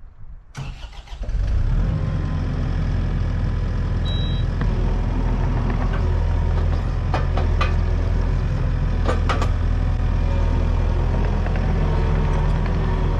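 An engine starts about a second in and settles into steady running with a low, even hum. A few light clicks sound over it.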